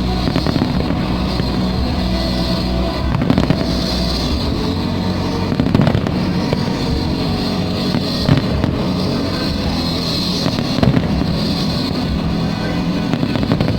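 Aerial fireworks bursting over loud music, with sharp bangs standing out about every two and a half seconds.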